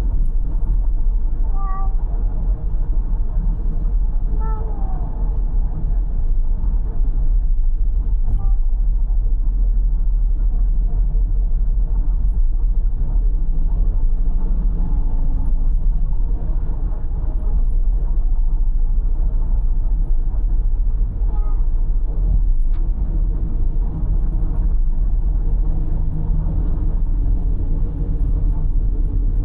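A cat meowing a few times in a moving car, short calls spread out over the steady low rumble of the cabin's road and engine noise.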